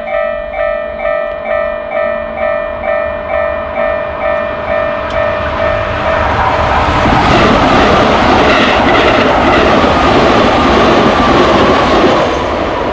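Japanese railroad crossing alarm ringing its 'kan-kan' about twice a second. About six seconds in, a train passes, loud enough to drown out the bell, and begins to fade near the end.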